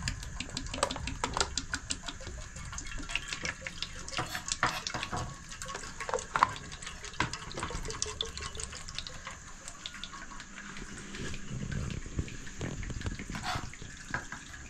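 Cooking oil poured in a steady thin stream from a large plastic jug into an aluminium pot, splashing into the oil already in it, with many small irregular clicks.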